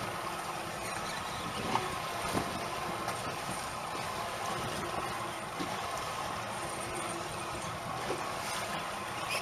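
Steady wind and water noise aboard a small offshore fishing boat, with a few light clicks and knocks now and then.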